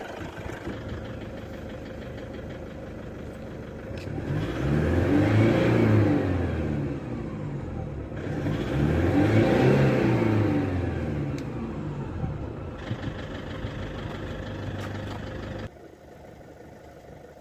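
Toyota Revo's four-cylinder D4D direct-injection diesel engine running and being revved up and let back down twice, then settling to a steady idle. The engine has a knocking, jerking, misfire complaint, and the mechanic calls its revved note harsh. The sound drops suddenly near the end.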